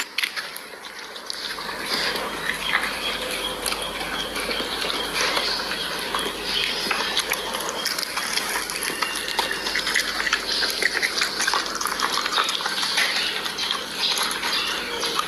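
A dog eating cooked rice from a bowl: close chewing and mouth smacking, a dense run of small clicks.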